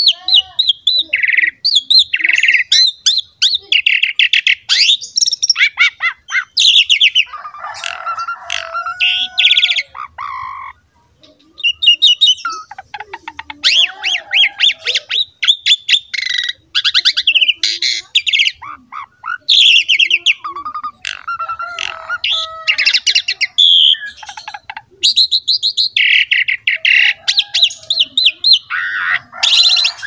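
Pied starling (jalak suren) singing almost without a break: quick runs of harsh chattering and squawking notes mixed with lower warbled whistles, with a short pause about eleven seconds in.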